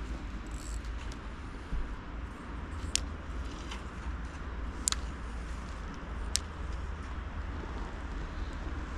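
Outdoor wind rumbling steadily on the microphone, with three sharp clicks spaced a second or two apart.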